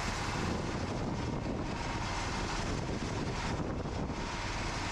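Engine of a Cooks 3238 full hydraulic sawmill running steadily.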